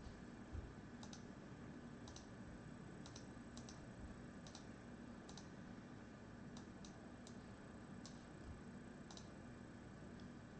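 Faint, scattered clicks of a computer mouse, single and double, every half second to a second, over a low steady electrical hum.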